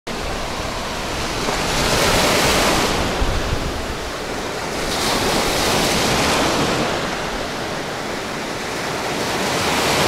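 Sea surf washing onto the shore, the rush of water swelling and easing three times, with wind buffeting the microphone.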